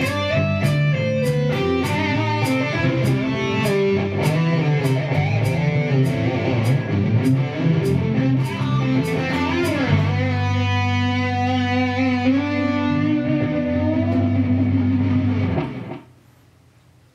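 Electric guitar, an Ibanez solid-body, playing a fast melodic lead over a steady beat, then holding a long final chord with vibrato from about ten seconds in. The music stops suddenly about sixteen seconds in.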